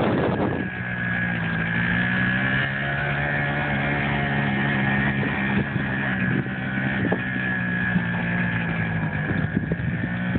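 Small youth ATV (quad) engine running at a low, steady speed as the quad rolls along, with a faint whine above the engine note.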